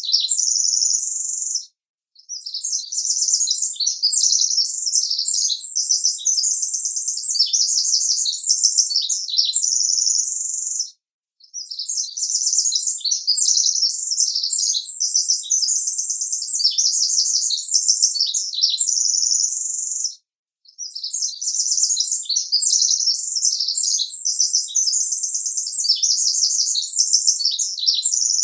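Birdsong: rapid, high-pitched warbling and trilling in long runs of about nine seconds, each broken off by a short pause.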